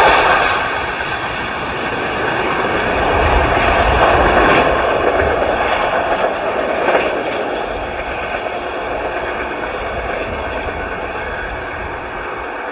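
Freight train passing close by: a dense rumble and rail noise of the wagons, loudest near the start and again about four seconds in, then easing off gradually.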